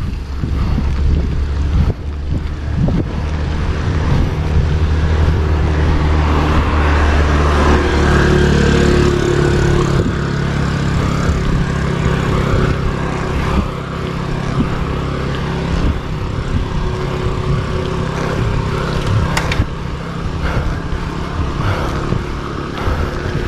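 Motor vehicles running along the road beside a moving road bike: a steady engine drone that shifts higher about eight seconds in, over wind rush on the microphone.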